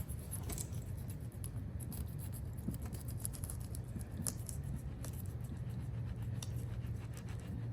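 Fillet knife cutting along a striped bass toward the tail: small scattered scraping clicks of the blade on the fish, over a steady low hum.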